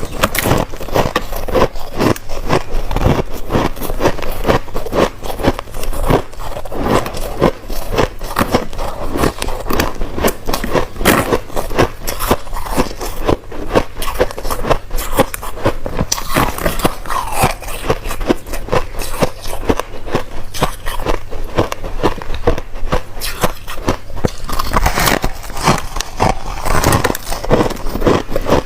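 Crushed ice being bitten and chewed up close, a dense run of crunches and crackles with no pause.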